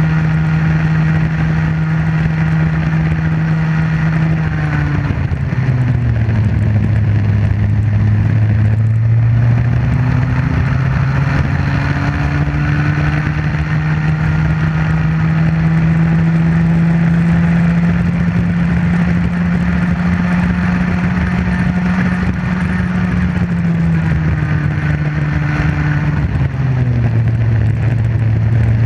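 Comer C50 50cc two-stroke Bambino kart engine at racing speed. It holds a high, steady note on the straights and drops in pitch twice as the kart slows for corners: about five seconds in, and again in the last few seconds. After the first drop it climbs back up as the throttle reopens.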